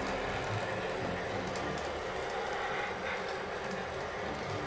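Model train freight cars rolling past on the layout track: a steady rumble of wheels on the rails with faint irregular clicking.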